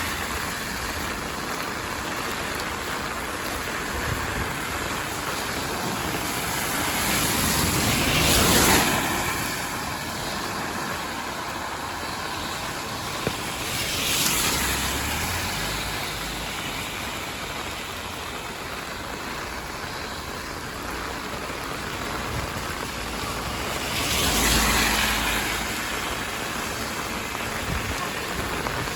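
Heavy rain falling with a steady hiss. Three times, a vehicle swishes past on the wet road, each swell rising and fading over a couple of seconds.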